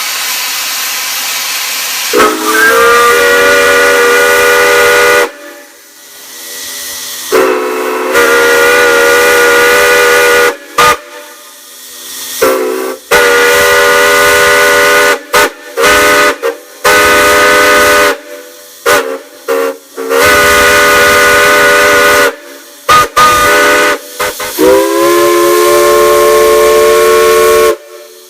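Chime steam whistle sounding a chord of several tones, blown in six long blasts of two to three seconds each with short toots between them. Steam hisses for about two seconds before the first blast.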